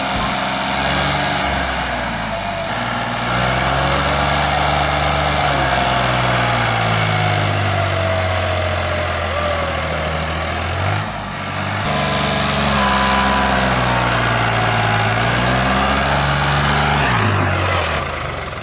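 New Holland 3630 tractor's diesel engine labouring as it tries to haul a heavily loaded sugarcane trolley out of soft ground. The revs rise and fall in two long pushes, easing off briefly about eleven seconds in and again near the end.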